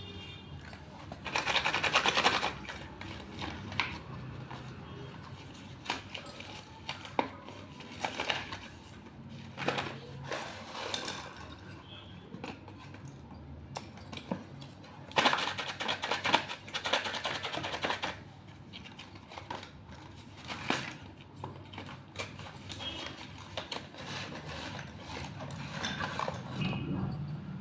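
Slate pencils and their box being handled, giving scattered sharp clicks and taps, with two longer bursts of rapid clattering, one about a second in and one around the middle.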